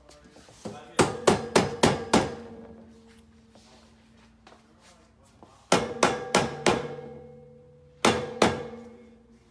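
Mallet blows on the steel roof cargo rack, knocking the rear section onto the middle section to seat the joint solidly. Three runs of quick strikes, about six, then four, then two, each leaving the steel tubing ringing briefly.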